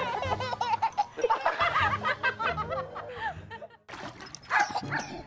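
Baby giggling in short bursts over background music with a steady beat; the sound drops out briefly about four seconds in, then returns with a short loud outburst.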